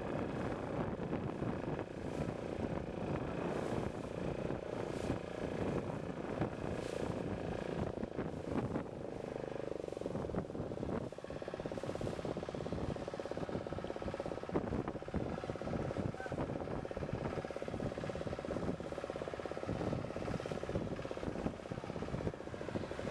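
Boat engine running steadily at sea with a fast, even knocking pulse, mixed with wind buffeting the microphone.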